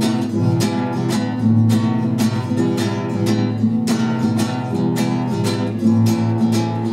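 Classical acoustic guitar strummed in a steady rhythm, about two to three chord strokes a second, with no singing.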